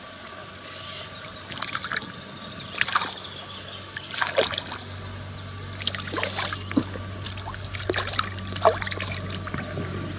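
A hooked fish thrashing at the surface as it is played on a fly line, making a series of irregular short splashes and water slaps.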